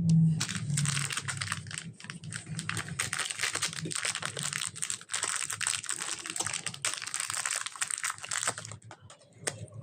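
Slime being mixed and kneaded by hand: a dense, steady run of sticky crackles and small pops that stops near the end.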